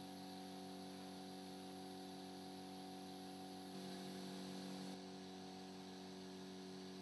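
Faint steady electrical hum with a light hiss beneath it, slightly louder for about a second around four seconds in.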